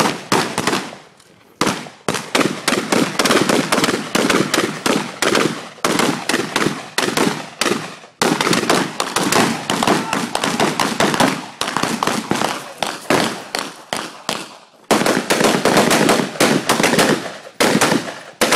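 Rapid, overlapping gunshots from several shooters firing at once, M4-type 5.56 mm rifles among them, many shots a second. There is a short lull about a second in.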